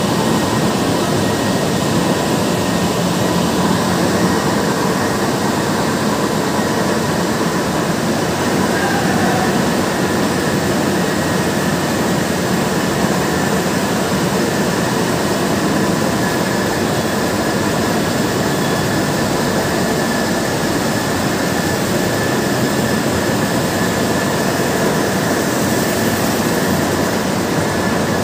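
Tea-processing factory machinery running: a loud, steady mechanical drone of motors and machines, with a faint whine on top.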